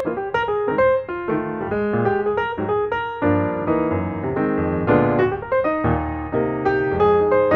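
Background piano music: a quick melody of many struck notes over lower chords.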